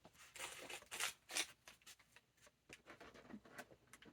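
Packaging rustling and crinkling in a few short bursts, the loudest about a second and a half in, followed by light clicks and taps as small items are handled.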